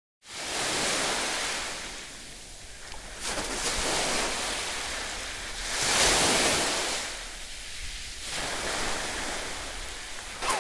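Small sea waves washing onto a sandy shore, the surf hiss swelling and falling every two to three seconds.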